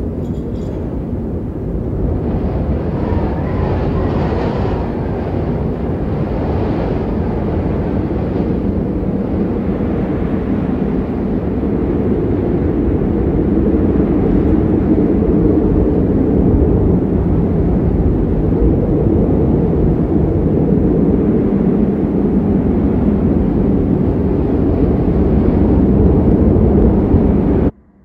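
Strong winter storm wind blowing hard: a steady, deep rushing that swells in gusts and grows louder, then cuts off suddenly near the end.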